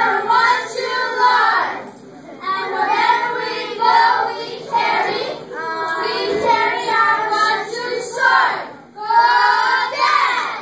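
A group of children singing a chanted cheer together, in four lines of a few seconds each with short breaks between them.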